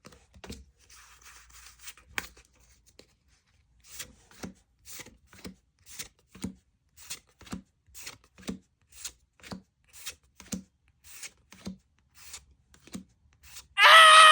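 Trading cards being flipped through one at a time, a soft snap about twice a second. Near the end a loud, drawn-out, voice-like cry cuts in.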